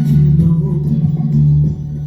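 Music: a guitar played over a steady low sustained tone, dipping briefly in loudness near the end.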